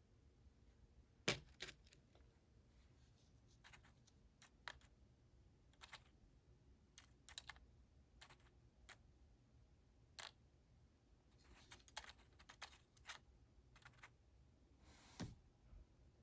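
Scattered small clicks and taps of padlock pins and tools being handled on a work surface, about a dozen spread out, the sharpest about a second in.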